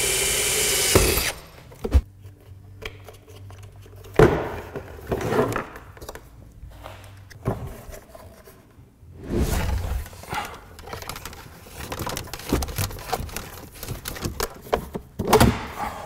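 Cordless drill running as it bores a small hole through a plastic dashboard compartment, stopping about a second in. This is followed by scattered knocks and rattles of the hard plastic part being handled.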